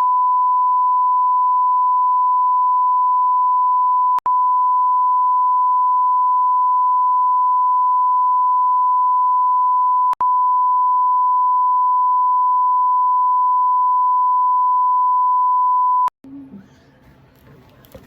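A loud, steady, single-pitched electronic beep, a pure sine tone held for about sixteen seconds, broken by two brief clicks about four and ten seconds in. It cuts off suddenly near the end, leaving faint room sounds.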